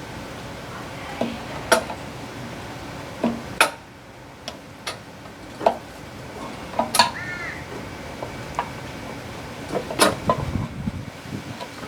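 Scattered clicks and clacks of metal tools and small parts handled while prying an old primer bulb out of a Briggs & Stratton lawn mower engine. A short animal call sounds once, about seven seconds in.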